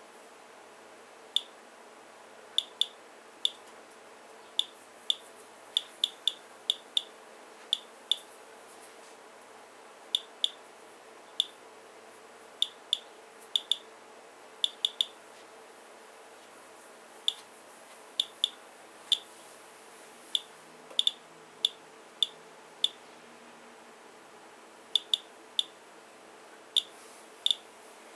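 Geiger counter chirping at random, irregular intervals, about 80 short high chirps a minute. Each chirp is one detected count from a rain-soaked paper-towel sample, which averages about 85 counts per minute, roughly twice the room's background.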